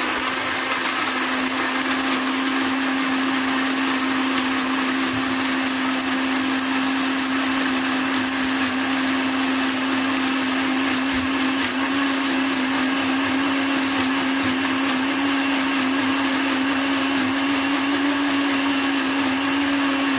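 Electric blender running continuously at one steady speed, grinding soaked dried red chillies, garlic and onion with soy sauce, vinegar and oil into a spicy red sauce. The motor's hum holds an even pitch that creeps slightly higher in the second half.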